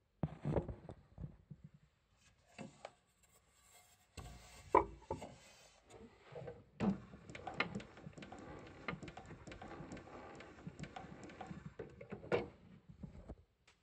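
Handling noises at a wooden console gramophone while one 78 rpm record is taken off and the next is put on: irregular clicks, knocks and rubbing of wood and metal. There is a denser stretch of rubbing through the second half, which stops shortly before the end.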